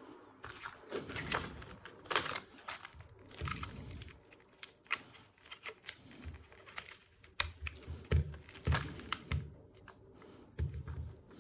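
Handling noise: irregular clicks, taps and rustling of objects being moved about by hand, with a few soft low thumps in the second half.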